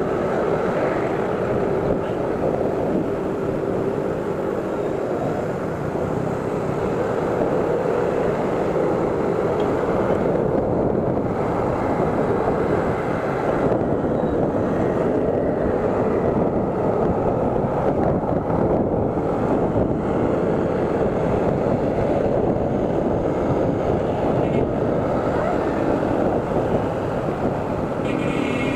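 Steady wind rush over an action camera's microphone from riding an electric scooter, mixed with the running of motorcycles and other traffic close around it.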